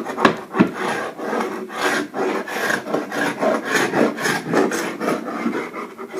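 Carbide paint scraper drawn in repeated short, rasping strokes across an oak floor, scraping paint spots off the surface of the wood.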